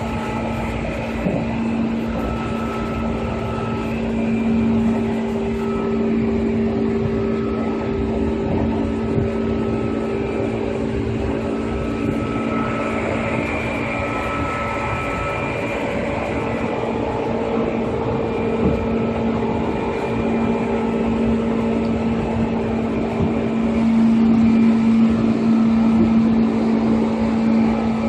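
Seibu 2000 series electric train running along the line, heard from on board: a continuous rumble of wheels on rail with a steady low hum, and higher tones that come and go. It grows a little louder near the end.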